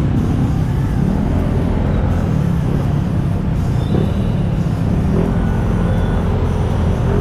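Steady low rumble of road traffic heard while riding a motorcycle.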